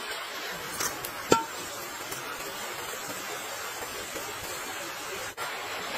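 A steady hiss with one sharp, ringing metal clink on a metal wok a little over a second in.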